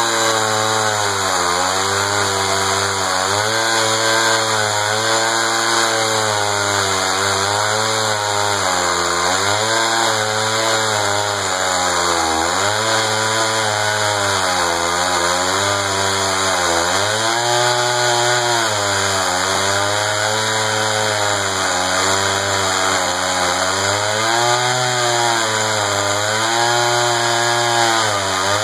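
Echo CS-500VL two-stroke chainsaw with a 20-inch bar cutting through thick red oak at full throttle. Its engine pitch dips under load and recovers every couple of seconds as the chain bites into the wood.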